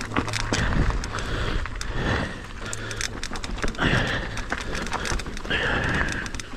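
Rocky Mountain Instinct full-suspension mountain bike rolling down a rocky dirt singletrack: tyres crunching over dirt and stones with dense irregular rattling and clattering from the bike, over a low rumble of wind on the microphone.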